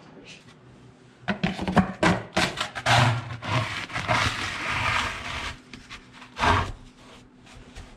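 Plastic dustpan scraping and clattering across a wooden floor, scooping up clumps of snow, with a single knock a little later.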